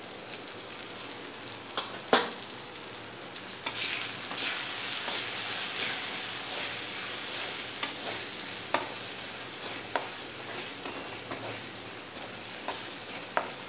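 Tomato-and-spice masala sizzling in oil in a metal kadhai while a slotted steel spatula stirs it, its edge now and then clicking against the pan. The sizzle grows louder about four seconds in, as the masala fries down toward the point where the oil separates.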